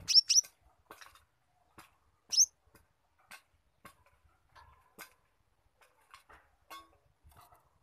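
Konin (kolibri ninja sunbird) calling in its cage with short, sharp ticking chips. Two loud high squeaks that rise in pitch come right at the start and another about two and a half seconds in: the squirrel-like calls that the bird has learned as imitation filling (isian tupai).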